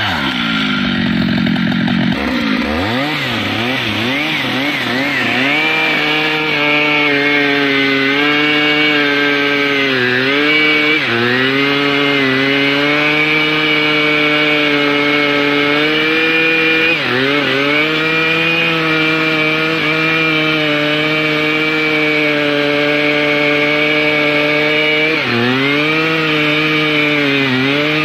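Stihl MS 881 two-stroke chainsaw running at high revs while cutting wood. Its pitch swings up and down quickly in the first few seconds, then holds high and steady, with brief dips about a third of the way in, past halfway and near the end.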